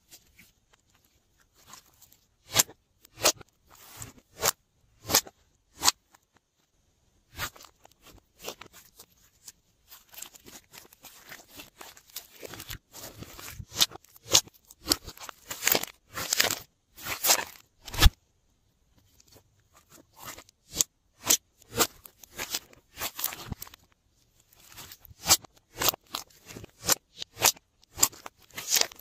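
Glossy slime being squished, pressed and stretched by hand, giving a string of irregular sticky clicks and pops. The pops come densest in the middle, with one especially loud snap about two-thirds of the way through.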